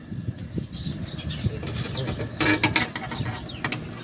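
Scattered clicks and clinks of metal hand tools, pliers and a gas torch, being handled at a freezer compressor's copper pipes, with a few sharper clicks about two and a half and three and a half seconds in. Birds chirp in the background.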